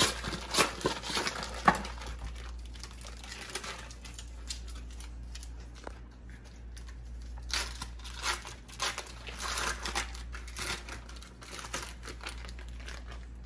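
Foil wrappers of Philadelphia cream cheese bricks crinkling as they are peeled off the softened cheese. The rustling comes in irregular bouts, busiest in the first couple of seconds and again in the second half.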